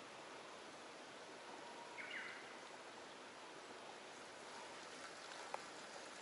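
Faint, steady outdoor ambience with an even hiss, a short downward-gliding bird call about two seconds in, and a single small click near the end.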